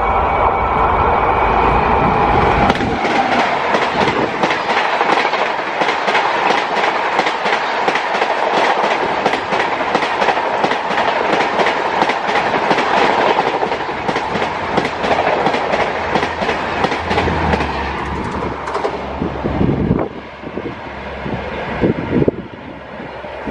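A passenger train passing at high speed, with its wheels clattering rapidly over the rail joints. The rush fades about twenty seconds in as the train goes by.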